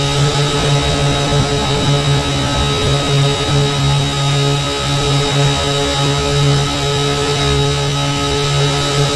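Syma X8C quadcopter's motors and propellers humming steadily at an unchanging pitch, heard from a camera mounted on the craft, with wind buffeting the microphone underneath.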